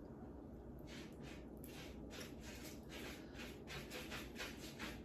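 Seafood being eaten close to the microphone: a quick run of soft crackly chewing and food-handling noises, several a second, starting about a second in.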